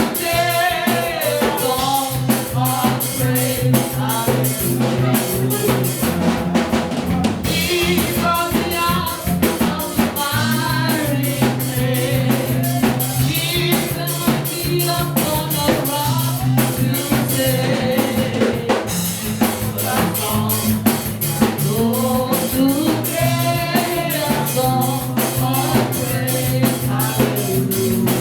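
Live praise-and-worship music: a singing voice carrying the melody over a drum kit and a bass line that changes note every few seconds.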